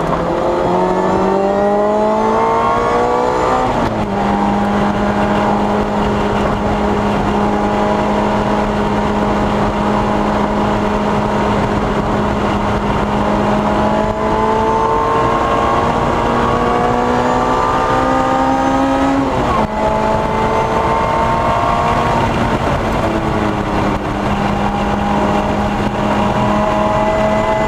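Lotus Exige S engine under hard acceleration, heard from inside the cabin: its pitch climbs steadily, drops sharply at an upshift about four seconds in, climbs again and drops at a second upshift around twenty seconds in, then climbs once more. Road and wind noise run underneath.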